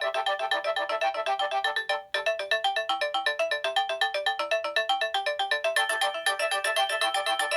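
Nokia 6230i mobile phone playing a polyphonic ringtone through its loudspeaker: a quick, even run of short bright notes, about ten a second, with several notes sounding together. About two seconds in it cuts off for an instant and a tune starts again.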